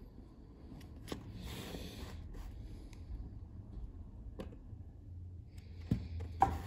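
Flexcut 1 mm U-gouge cutting fine lines through a lino block: faint scraping of the blade through the linoleum, with a longer scraping stroke about a second in and a few sharp clicks, the two loudest near the end.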